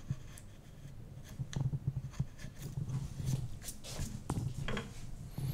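A wood-carving gouge pushed by hand through a wooden board, making faint short scraping cuts as it carves a shallow groove. Near the end the board is swept clear of shavings by hand.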